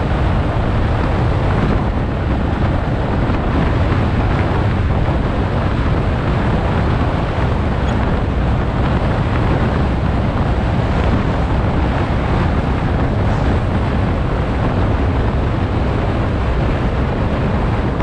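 Loud, steady wind rush buffeting the microphone of a bike-mounted camera on a fast asphalt descent at over 70 km/h.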